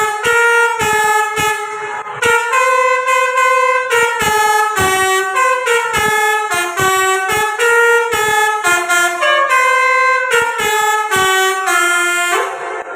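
Bus telolet horn, a set of electric air-horn trumpets, playing a fast melody of short horn notes that step up and down in pitch. It ends in a longer held note near the end.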